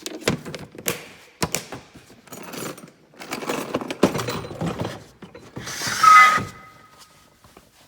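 Metal tool box drawers being shut and opened, with a run of knocks and clatters from tools shifting inside. About six seconds in comes the loudest sound, a drawer rolling along its slides, ending in a brief metallic ring.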